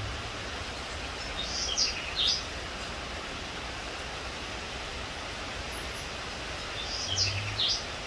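A small bird calling twice, about five seconds apart: each time a short run of high, quick chirps, over a steady outdoor background hiss.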